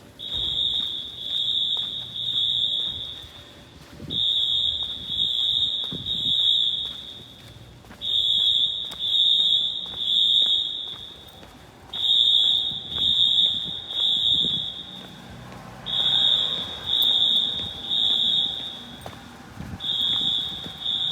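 Synchronized Wheelock AS fire alarm horns sounding the three-blast temporal evacuation pattern: three short blasts, a pause, then three more, repeating every four seconds. They are loud and echo through a concrete parking garage.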